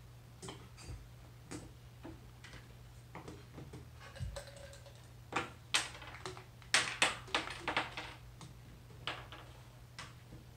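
Small hard candies clicking and tapping against a plastic bottle as they are handled and dropped in, with scattered single clicks and a quick run of louder clicks about seven seconds in.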